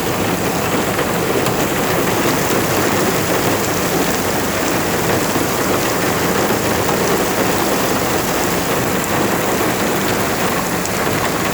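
Steady, loud rush of water from heavy desert rain and a wadi running in flash flood.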